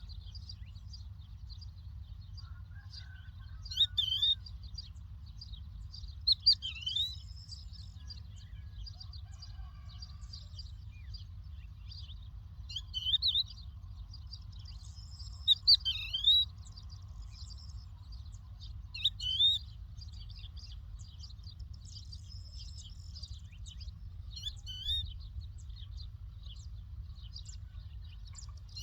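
A lark calling in short, high whistled phrases, each a quick dip and rise in pitch, repeated every few seconds with pauses between. A steady low rumble runs underneath.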